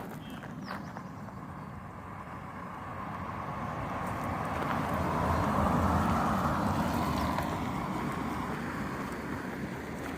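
A vehicle passing on the highway: road noise that swells to a peak about six seconds in and then fades away.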